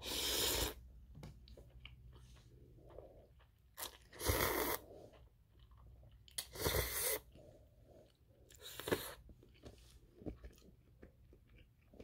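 Instant ramen noodles slurped from a cup bowl: four loud slurps about half a second each, near the start and about four, six and a half and nine seconds in, with soft chewing between.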